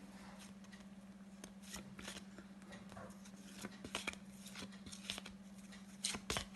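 Faint, quick flicks and clicks of paper flashcards being flipped one after another through a pack, over a steady low hum.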